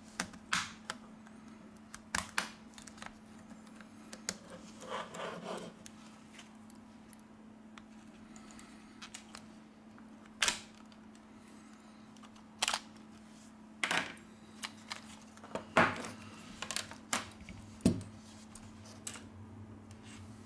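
Sharp clicks and light taps at irregular intervals as the middle frame of a Samsung Galaxy A31 is pried off with a small tool, with a faint steady hum underneath.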